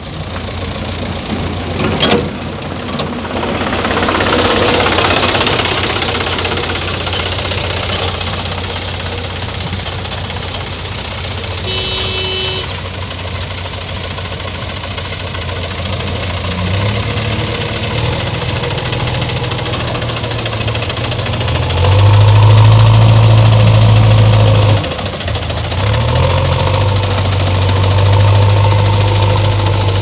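Diesel engines of a JCB backhoe loader and a Mahindra 275 DI tractor running steadily. The tractor's engine grows louder from about halfway as it drives up close, runs loudest for a few seconds, drops off briefly, then runs loud again.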